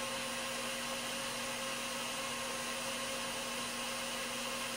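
A steady hiss with a faint hum running under it: constant background noise, with no distinct event.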